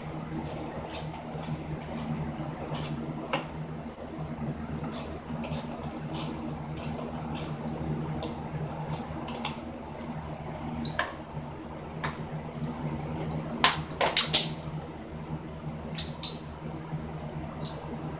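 Slow, even metallic clicks, about two a second, from a hand tool working the bolts on a Honda XR50's rear side plastic. A cluster of louder metal clinks comes about 14 seconds in, over a steady low hum.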